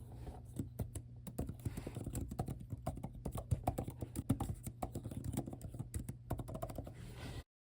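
Typing on an Apple Magic Keyboard: fast, irregular light key clicks of low-travel scissor keys springing back, over a steady low hum. The typing cuts off abruptly near the end.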